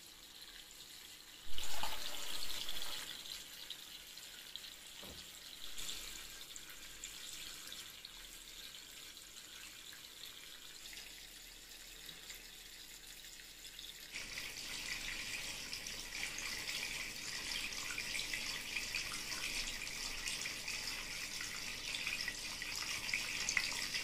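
Small tabletop waterfall fountain running: water spilling from the upper basin and splashing into the pot below in a steady trickling hiss. A brief louder burst of sound comes near the start, and the splashing grows louder and steadier about halfway through.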